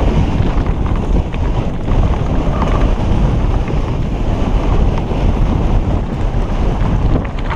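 Heavy wind rumble on a helmet-mounted camera's microphone as a mountain bike descends fast, with scattered clicks and rattles from the tyres and bike rolling over loose stones and dirt.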